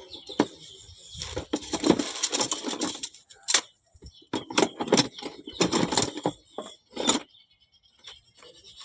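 Metal hand tools and small parts clinking and rattling in irregular bursts as they are handled, with a short lull near the end.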